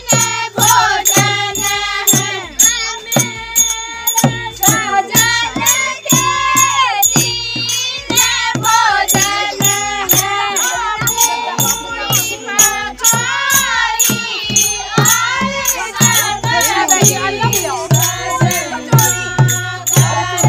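Women singing a Holi folk song together to a two-headed barrel drum beaten in a steady rhythm.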